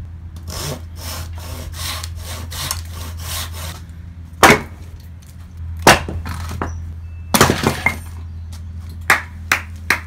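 Wood fire burning in a barbecue pit, with several sharp cracks and pops, the loudest about four and a half and six seconds in. It opens with a quick run of rhythmic scratchy strokes, about three a second, and a steady low hum runs underneath.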